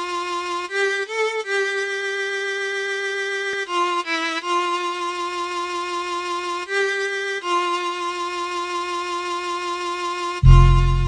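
Instrumental intro of a rap track: a violin plays a slow melody of long held notes, changing pitch only a few times. A heavy deep bass beat comes in near the end.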